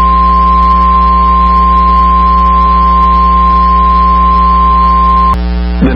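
NOAA Weather Radio warning alarm tone: a single steady high tone that cuts off with a click about five seconds in, over a steady low hum. The tone signals that an emergency warning message follows, here a severe thunderstorm warning.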